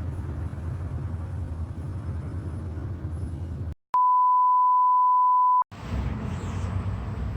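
Steady low rumble of a vehicle ride, cut off about three and a half seconds in by a single flat, high censor bleep lasting nearly two seconds, after which the rumble comes back.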